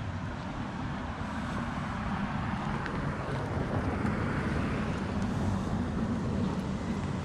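Street traffic: a car passing, its tyre and engine noise swelling through the middle, over a steady low hum.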